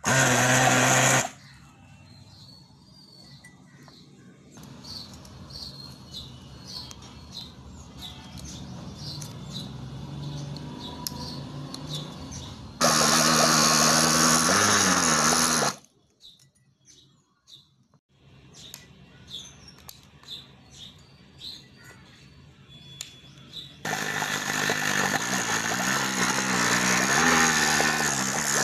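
Homemade fish tank pump's small electric motor running in three spells: briefly at the start, for about three seconds midway and for about five seconds near the end, a buzzing hum whose pitch sags as it runs.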